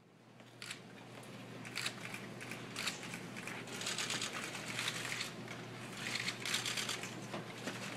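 Room noise over a steady low electrical hum: irregular rustling and clicking bursts about once a second, growing louder over the first few seconds.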